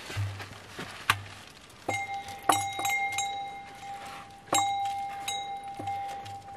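Several metallic clinks, each followed by a clear bell-like ringing tone that lingers a second or more. The loudest strikes come about two and a half and four and a half seconds in.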